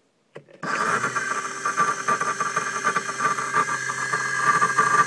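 A click, then a 24-volt gear-reduction e-bike motor starts and runs steadily, overvolted at 48 volts: a steady whine from the motor and its reduction gears over a rattle.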